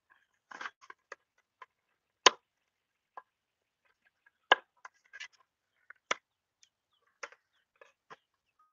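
Plastic football helmet shell being handled as its interior pads are pulled loose: scattered light clicks and crackles, with three loud sharp snaps about two seconds apart.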